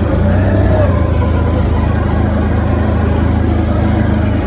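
Engine of an off-road vehicle running steadily at a low, even speed while riding a forest trail.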